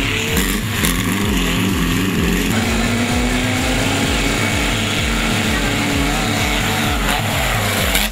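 Volkswagen Beetle off-road race cars running hard, their engine note slowly rising, mixed with background music that has a steady repeating bass beat.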